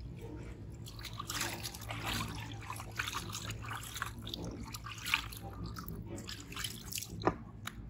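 Water splashing and trickling in a plastic bathtub as hands scoop water over and scrub a baby monkey, in uneven splashes and drips. A short sharp sound stands out near the end.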